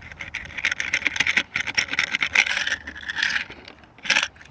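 Toy train rattling and clicking quickly as it rolls along its track, with one short scrape about four seconds in.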